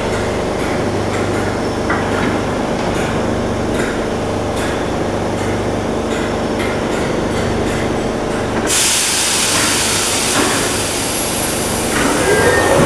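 Merseyrail electric multiple unit standing at the platform with a steady hum, then a sudden loud hiss of air about two-thirds of the way through. Near the end a rising whine begins as its traction motors start the train moving.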